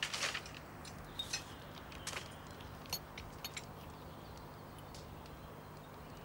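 Faint rustling of a newspaper being picked up and opened, with a few light clicks, over a low steady room hum.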